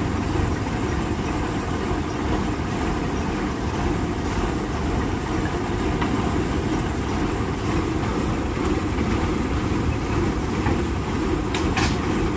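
Heavy truck engine running steadily, a low rumble, with a short rattle near the end.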